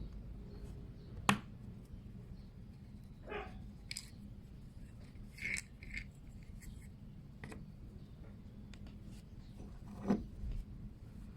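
Scattered small clicks and short scrapes from handling a yoyo's small parts, with a sharp click about a second in and another near the end, over a low steady hum.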